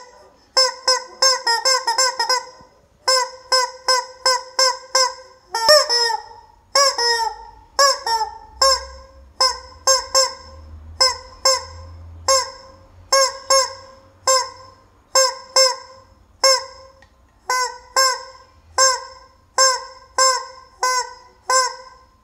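Rubber chicken squeeze toy squawking over and over in short, pitched squawks, about one a second, with a quicker run of squawks near the start.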